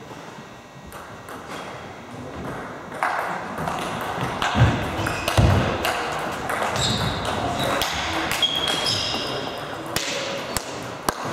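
Table tennis rally: the celluloid ball clicking sharply back and forth off bats and table, with a couple of heavy thumps midway. A little hand clapping near the end.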